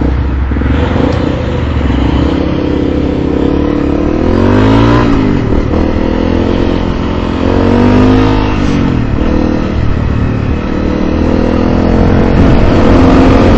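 Motorcycle engine running under way, its pitch rising and falling as the throttle opens and eases off a couple of times.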